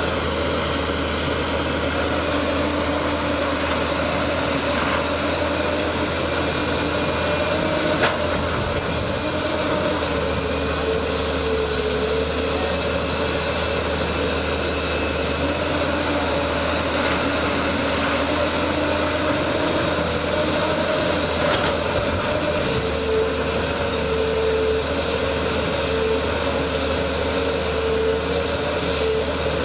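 Diesel engines of two tracked excavators running steadily as they dig, with a single sharp knock about eight seconds in.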